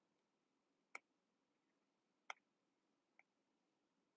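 Near silence broken by three short, sharp clicks, the last one faint, from a stylus tapping the glass screen of an iPad while drawing.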